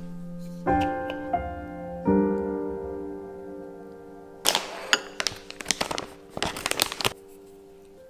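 Soft piano music with sustained chords. About four and a half seconds in, ground cinnamon is shaken from a small glass spice jar in a run of quick, scratchy shakes lasting about two and a half seconds.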